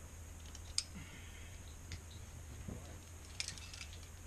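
Scattered sharp clicks: one under a second in, another near two seconds, and a quick cluster of several around three and a half seconds, over a steady low hum.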